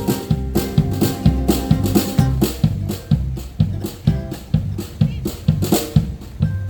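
Live country band playing an instrumental passage, with a steady drum-kit beat over a walking bass line and string instruments.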